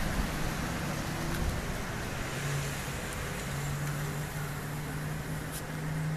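A motor vehicle's engine running: a steady low hum comes in about two seconds in and holds, over a constant outdoor rumble.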